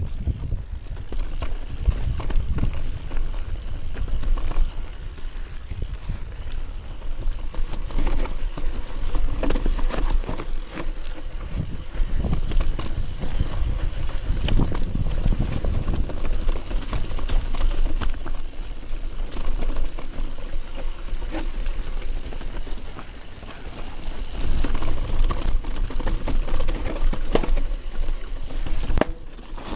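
Mountain bike riding down a rough, stony trail, heard from on the bike: wind rumbling on the microphone, with tyres on loose stones and the bike rattling over bumps in quick, irregular clatters.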